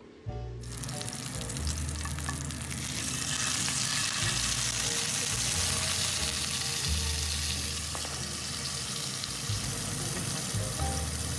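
Duck breast frying in hot oil in a nonstick pan: a loud, steady sizzle that starts abruptly just after the beginning and grows stronger about three seconds in.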